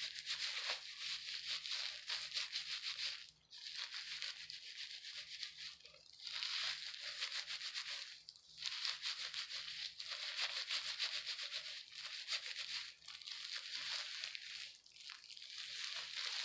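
Plastic-gloved hands rubbing and squishing hair dye through wet hair: a crinkly rubbing rustle that comes in bouts of a couple of seconds with short breaks between.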